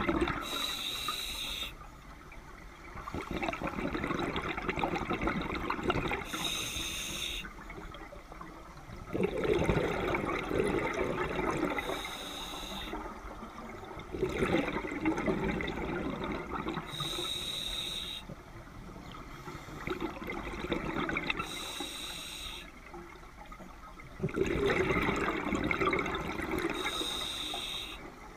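Scuba diver breathing through a regulator underwater. Each breath is a short hiss on the inhale, followed by a few seconds of bubbling exhaust on the exhale. About five breaths, in a slow, even rhythm.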